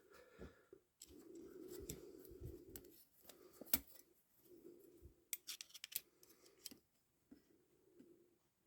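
Faint handling sounds of clutch steel plates being measured: a few sharp metallic clicks, the loudest about a third of the way in and a short cluster just past the middle, with light scraping between them.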